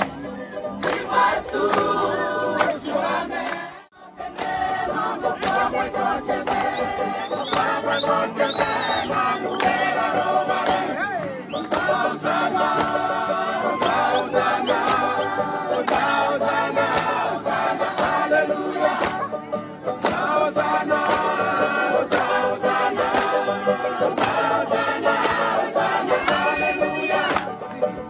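Music with a choir of voices singing together in harmony, dropping out briefly about four seconds in.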